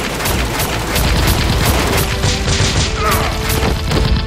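Rapid gunfire sound effect, about three shots a second, with music coming in about halfway through.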